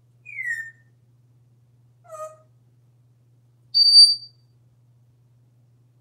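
African grey parrot whistling: a short falling whistle, a brief lower call about two seconds in, then a loud high-pitched whistle near four seconds in, the loudest of the three.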